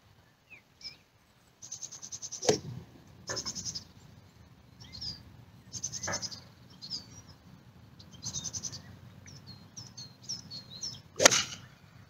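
Birds sing in repeated high trills. Near the end comes a single sharp crack as a golf club strikes the teed ball, the loudest sound. A softer click comes about two and a half seconds in, during a practice swing.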